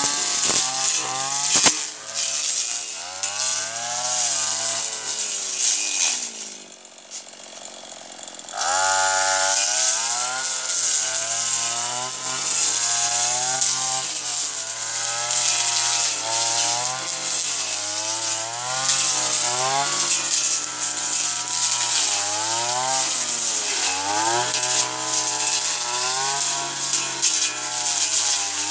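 Husqvarna 226R brushcutter's two-stroke engine revving up and down as it cuts tall grass, its pitch rising and falling every second or two. About six and a half seconds in it drops to a lower idle for about two seconds, then revs up again.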